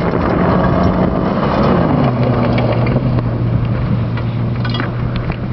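Rally car engine running hard as the car passes on a loose dirt stage, with a rough hiss of tyres on the dirt. The engine note drops in pitch about two seconds in, then holds lower, with a few sharp ticks near the end.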